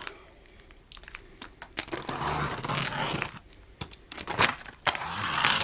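A taped-up cardboard box being pulled and torn open by hand: crinkling, tearing and scraping of packaging, in two longer rustling stretches with scattered clicks between.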